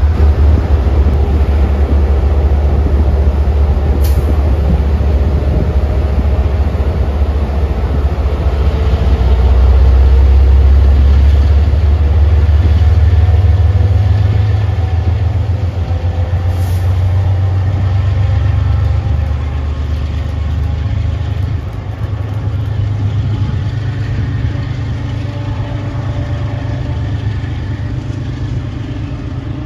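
MBTA commuter train's diesel locomotive engine running hard, a deep drone with a slowly rising note as the train accelerates away, then gradually fading as it recedes.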